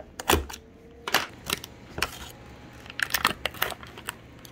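Red plastic tub of gochujang being handled and opened: a string of sharp plastic clicks and crinkles in short clusters, with a plastic measuring spoon knocking against the tub.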